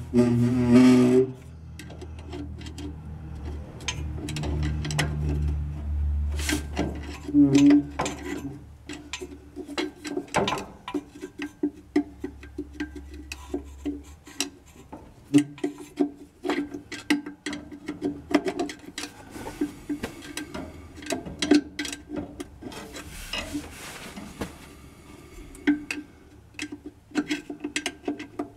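Rear drum brake on a 1949 Chevy 3100 being adjusted by hand: a brake tool works the shoe adjuster through the backing-plate slot with many irregular clicks and scrapes. At the very start the shoes give a short groan against the drum as the wheel turns, the sign that they are still set a little tight.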